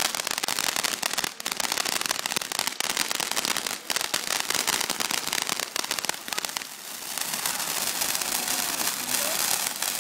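Ground fountain fireworks spraying sparks, giving a dense, continuous stream of rapid small pops. The sound thins briefly a little before seven seconds in, then picks up again.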